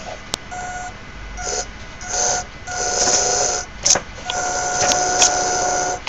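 Small fischertechnik electric motors run in short bursts from the Bluetooth control set's joysticks: a steady whine that starts and stops several times, the longest run about a second and a half near the end, with a few sharp clicks in between.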